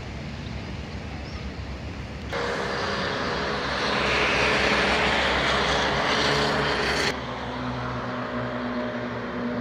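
City street traffic noise: cars running along a wide road. A louder stretch of road and engine noise starts abruptly about two seconds in and cuts off about seven seconds in.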